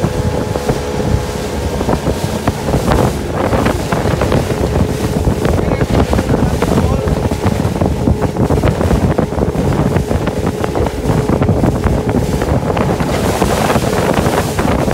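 Small fishing boat's outboard motor running steadily at speed, with wind buffeting the microphone and rushing water around the hull.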